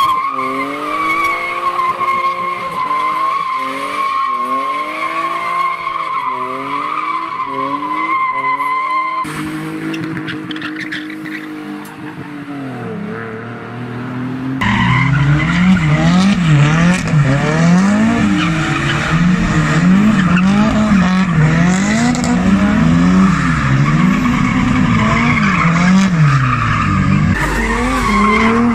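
Cars drifting and doing burnouts: tyres squealing in a steady high wail while the engines rev up and down. The squeal drops out about nine seconds in and an engine fades away; from about fifteen seconds in it is louder again, tyres squealing and the revs swinging quickly up and down.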